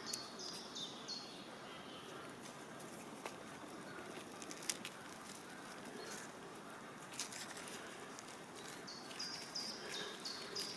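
Scattered small crackles and clicks of dry soil, twigs and leaf litter being scraped and broken apart by hand. A small songbird repeats a short phrase of high, falling notes at the start and again near the end.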